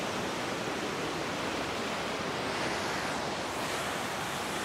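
Water rushing steadily through a dam spillway: a constant, even churning of whitewater.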